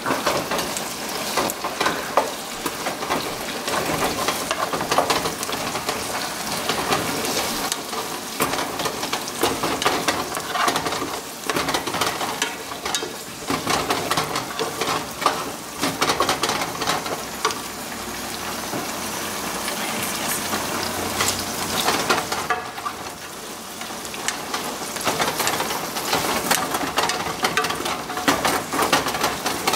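Chopped celery sizzling in a little oil in a nonstick frying pan, stirred with a wooden spatula that scrapes and clicks against the pan.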